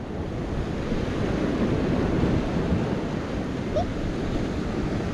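Ocean surf breaking and washing over the sandstone rocks, a steady rushing noise, with wind on the microphone.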